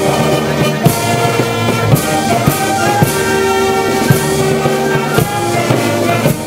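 Miners' brass band playing: held brass notes over a steady beat of drum strikes.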